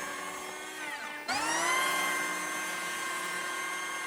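Makita DKP181 18V brushless cordless planer's motor and cutter drum whining. About a second in its speed drops, then it spins straight back up to full speed and runs steadily.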